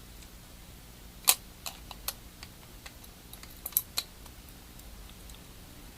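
Small sharp clicks and taps of the Galaxy S3's plastic parts and internals being handled during reassembly: one louder click about a second in, then scattered lighter ones and a quick cluster near two-thirds through, over a faint low hum.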